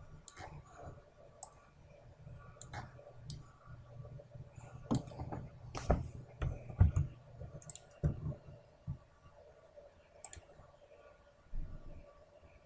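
Computer mouse buttons clicking irregularly, a scattered series of sharp clicks with a few louder knocks about five to seven seconds in, over a faint low hum.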